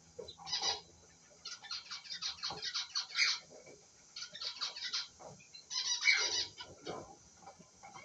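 Newly hatched cockatiel chick begging while being fed by the adult: rapid high chirping in four bursts, the longest about two seconds.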